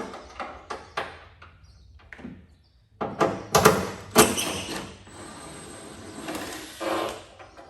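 Hand tools being handled while working at a Torx bolt on a ute tailgate: a run of sharp metallic clicks, then heavier knocks and clatter about three seconds in, followed by a couple of seconds of steady scraping noise.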